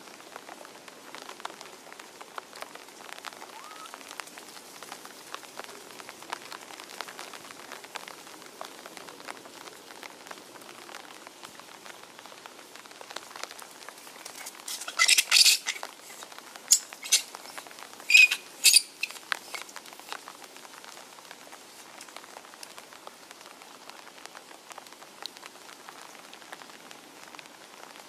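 Steady rain pattering on foliage, with about five short, high-pitched animal calls in quick succession about halfway through.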